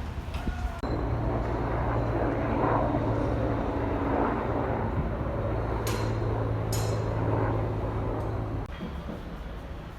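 Heavy construction machinery running with a steady hum, with two short hisses about six and seven seconds in.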